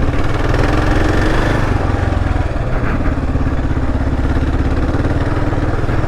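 Kawasaki KLR 650's single-cylinder engine running steadily at low trail speed. The revs rise a little about a second in and ease off again.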